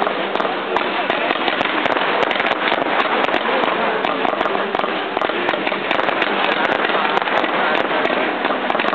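Fireworks display: a dense, unbroken barrage of crackling and popping from rockets launching and shells bursting, with many sharp cracks packed close together.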